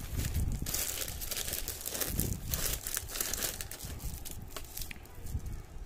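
Plastic courier mailer and bubble wrap crinkling and rustling as a wrapped box is pulled out of the bag, busiest in the first few seconds and thinning out near the end.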